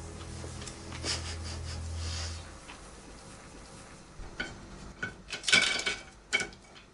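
A few short clinks and scrapes of utensils against tableware during a meal, bunched in the second half, the loudest a little over five seconds in.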